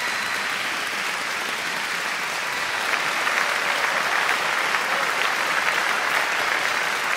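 Crowd applause, the clapping growing denser and a little louder about three seconds in.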